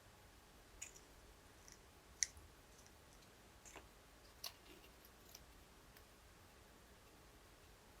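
A few faint, scattered clicks and light taps from small objects being handled, over near silence; the sharpest click comes a little after two seconds.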